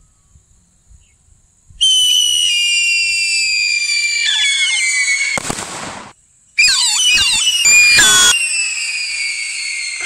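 Two whistling fireworks going off one after the other, set off by the remote-control firing robot. Each is a loud, shrill whistle that slides slowly down in pitch; the first starts about two seconds in and stops abruptly about six seconds in, and the second starts with a warble shortly after and is still whistling at the end.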